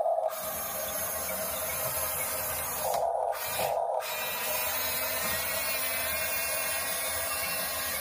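Huina 569 RC bulldozer driving, with its electric track motors and gearing whirring and grinding while its sound module plays along. The drive stops twice, briefly, around three to four seconds in, leaving only a steady hum from the toy's sound module.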